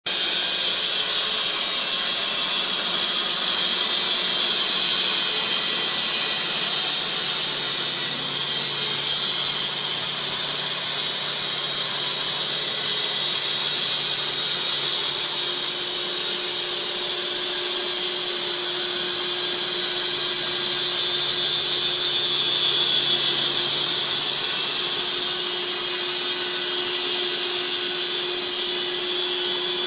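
Puma EA bandsaw mill running, its band blade cutting through wood with a steady, high hiss over a faint even hum.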